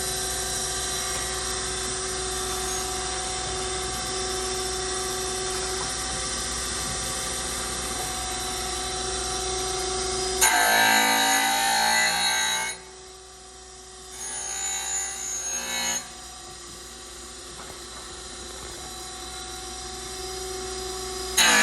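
Brown and Sharpe 618 Micromaster surface grinder running, a steady machine hum with several held tones. About ten seconds in, a louder, rougher noise sets in for about two seconds. The sound then drops sharply and settles back into a quieter steady hum that slowly grows louder.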